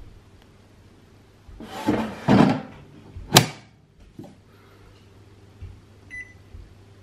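COSORI Turbo Blaze air fryer's basket drawer slid in along its runners and shut with one sharp click, then a short single beep from its touch control panel about six seconds in.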